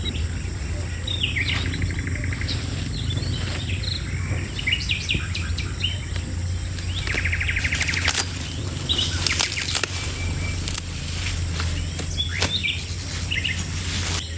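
Birds chirping in short calls, with two quick rattling trills, over a steady low hum.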